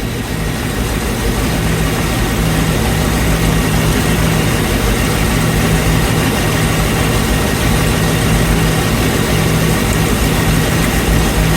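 454 big-block Chevrolet V8 marine engine running steadily at idle. The owner reports a misfire on cylinder 8 that comes and goes with ignition timing.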